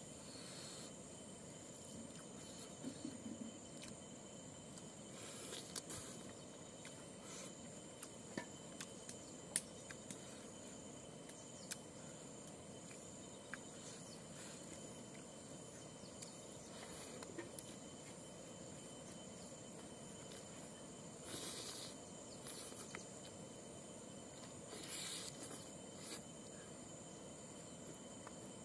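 Faint eating sounds from a man eating rice and pork with his fingers: scattered short clicks, smacks and rustles of chewing and of picking food off a banana leaf. Behind them runs a steady high-pitched insect drone.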